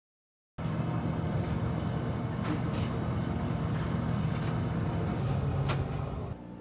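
A steady low mechanical hum with two faint clicks. It starts abruptly after a moment of dead silence and drops away shortly before the end.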